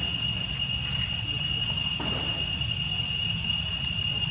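Steady, high-pitched drone of insects that holds unchanged throughout, over a low steady rumble.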